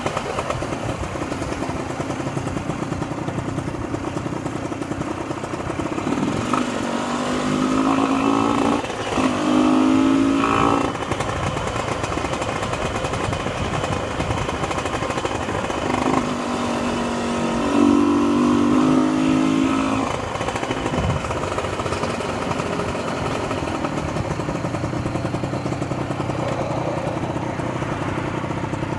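Honda NSR motorcycle's two-stroke engine running along at steady speed, then pulling up in revs twice, about a quarter of the way in and again a little past the middle, with a short drop at a gear change during the first pull.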